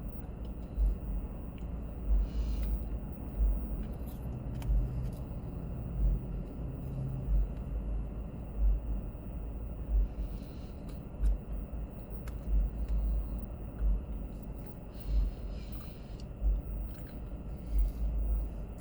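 A person sipping a thick apple pie milkshake and swallowing, with a few short slurping hisses. Under it runs a steady low rumble with a soft low thump about every second and a bit.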